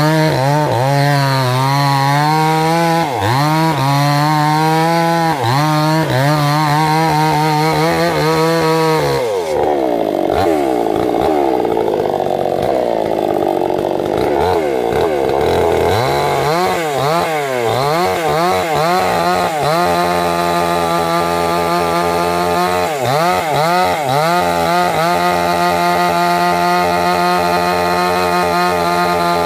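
Large two-stroke chainsaw sawing into the trunk of a rain tree (trembesi) at full throttle, the engine pitch dipping and recovering as the chain bites. About a third of the way in the revs drop away while the saw is out of the cut, then it revs back up and cuts steadily again.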